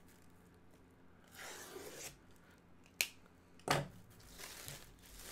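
A letter opener slitting the shrink-wrap plastic on a package: a short soft slicing hiss about a second and a half in, then a sharp click and a louder knock.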